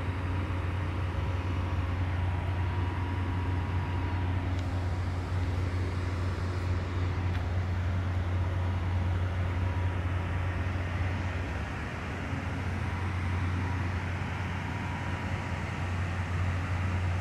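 Heavy drilling-rig machinery running: a steady, loud, low drone with a constant hum.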